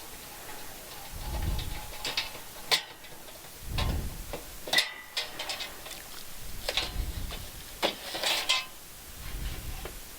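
A pleated air filter being worked into a furnace's sheet-metal filter slot: irregular scraping and rustling with several sharp clicks and knocks as the frame catches against the metal.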